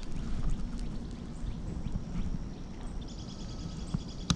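Water sloshing and trickling with handling noise as a bass is lowered back into the river. About three seconds in, a faint high rapid chirping starts, and a single sharp click comes near the end.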